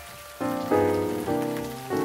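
Soft relaxing background music of struck notes that start sharply and fade, with a new chord coming in about half a second in, layered over a steady patter of rain.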